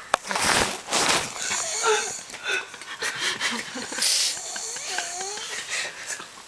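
A sleeping person snoring with wheezy breaths, the two loudest in the first second or so.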